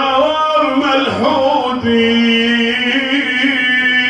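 A man's solo voice singing a mournful Shia elegy (na'i) in Iraqi Arabic, holding long wavering notes and shifting pitch between phrases.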